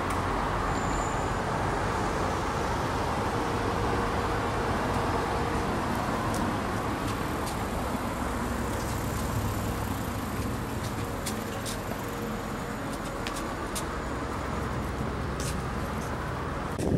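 Steady road traffic noise of cars passing on a city street, with a few faint clicks in the second half.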